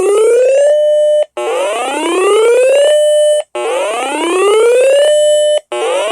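Electronic whooping siren alert tone announcing an emergency alert. Each whoop rises in pitch for about a second and a half, holds briefly at the top, then stops and starts again, repeating about every two seconds.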